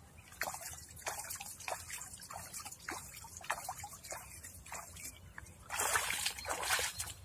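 Water sloshing and trickling as a plastic bucket is dipped and filled in shallow river water, then louder splashing near the end as rubber boots wade out of the water.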